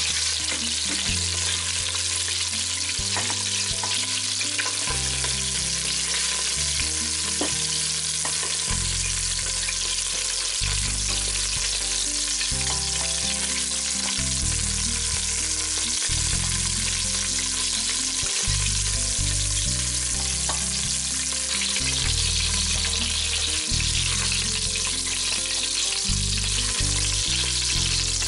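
Chicken pieces sizzling steadily as they fry in oil in a stainless-steel pot. Tongs turn and lift the pieces, with a few light clicks against the pot.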